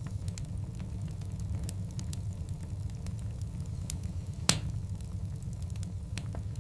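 Wood fire of burning logs: a steady low rumble of flames with frequent small crackles, and one sharp, loud pop about four and a half seconds in.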